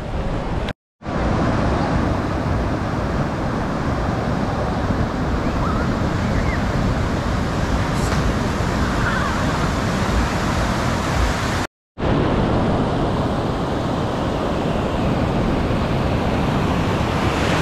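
Ocean surf rushing steadily, a loud even wash of breaking waves, cut off twice for a split second. Faint distant voices are heard now and then.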